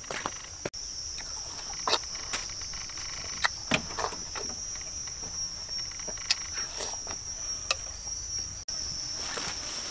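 Insects droning in a steady, high-pitched buzz, with a scattering of short, sharp knocks and rustles over it, the loudest about two and four seconds in.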